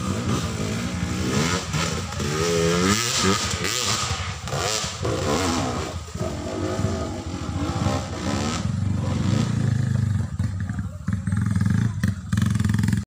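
Motorcycle engine revving up and down under load as it climbs a steep dirt slope, its pitch swinging repeatedly, then settling into a steadier low drone near the end.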